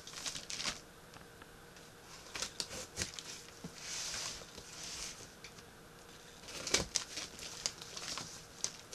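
Utility knife slitting the packing tape on a cardboard box: short scraping cuts mixed with taps and knocks as the box is handled, the loudest knock about two-thirds of the way in.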